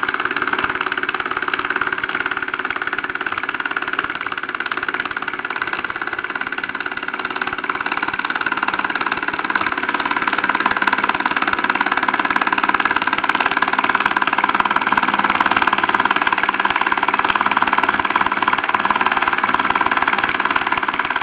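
Mersey No. 51 toy steam engine running steadily, a continuous dense hiss-and-chuff from its small cylinder and exhaust. It gets a little louder about ten seconds in.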